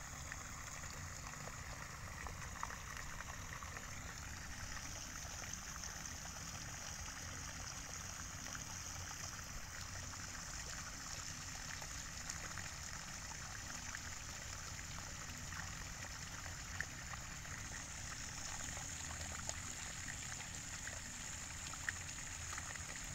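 Water pouring steadily from the open end of a pipe, splashing onto the ground and plants below.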